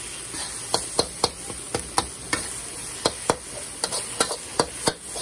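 Metal spatula scraping and knocking against a wok, a rapid, uneven run of strokes about three a second, as eggs are scrambled among diced chicken and onion. Under it the food sizzles in the hot pan.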